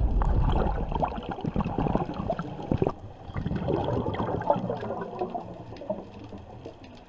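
Underwater bubbling and gurgling with many small crackling clicks, over a low rumble that dies away in the first second or two. The whole sound fades out steadily.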